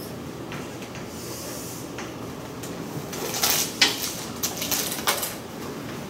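Chalk strokes and taps on a chalkboard as lines are drawn: a few faint ticks early, then a cluster of quick, scratchy strokes between about three and five seconds in, over steady room noise.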